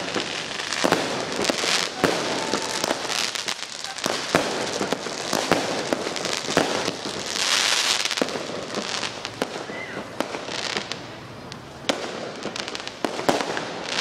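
Fireworks and firecrackers going off in many sharp, irregular bangs and cracks, with a longer hiss swelling about halfway through.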